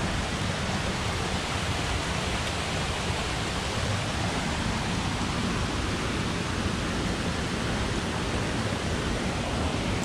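Waterfall and a shallow stream rushing over stones: a steady, even rush of water.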